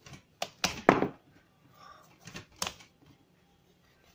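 A kitchen knife cutting into and peeling the hard rind of a squash on a wooden board: a few sharp knocks and scrapes, the loudest about a second in.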